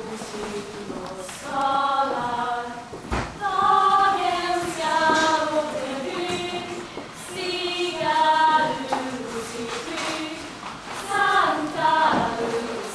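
Lucia choir of girls and young women singing together, phrases of held notes with short breaks for breath between them.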